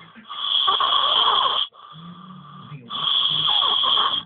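A sleeping boy snoring loudly, two long snores each lasting about a second and a half, a little over a second apart.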